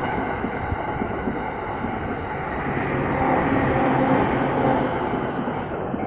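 A JR Tokaido Line local electric train running past on the tracks, its rolling noise swelling in the middle and dropping away near the end as the last cars clear the crossing. A level-crossing warning bell rings along with it.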